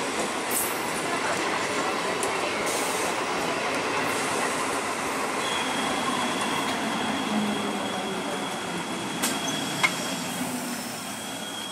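Electric multiple-unit local train running past close by, a steady rumble of wheels on rail. A thin, steady high-pitched tone joins about halfway through, and two sharp clicks come near the end as the last coach passes, after which the sound eases slightly.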